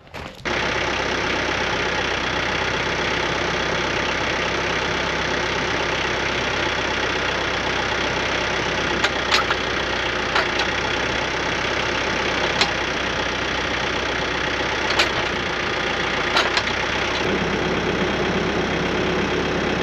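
TYM compact tractor's diesel engine idling steadily, with a few light clicks now and then.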